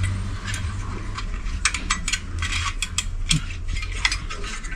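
Irregular small clicks and clatter of hard gear being handled, over a steady low hum.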